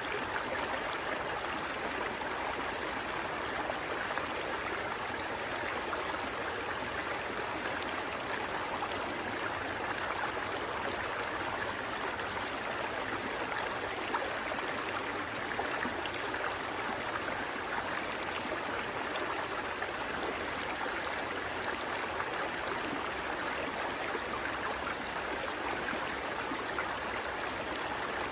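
Flowing water running steadily, an even splashing rush with no change in level.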